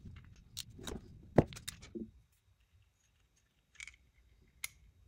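Small metal parts of a fuel pressure regulator clicking and tapping as the old orifice is worked out of the regulator body. There is a run of clicks with one sharp click about a second and a half in, then a lull with a couple of faint ticks near the end.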